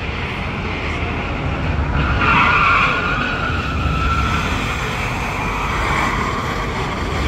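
Tyres of a Ford F-150 Lightning electric pickup squealing on a polished concrete floor as it turns, loudest about two seconds in and easing off over the next few seconds, over a steady low rumble.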